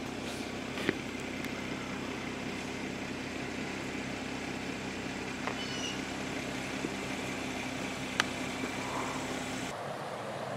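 A vehicle engine idling with a steady low hum, with a couple of sharp clicks and a short high chirp over it. About a second before the end the hum cuts off and gives way to the steady rush of river water.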